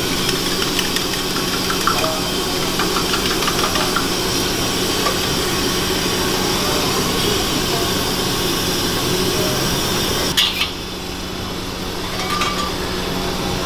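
Steady roar of a gas wok burner at high flame, with a few light metal clinks. About ten seconds in there is a sharp clank, after which the roar drops a little.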